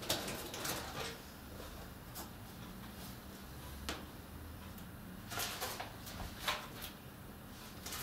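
Paper handling: sheets rustling and ring-binder pages being turned, in scattered short rustles and soft clicks.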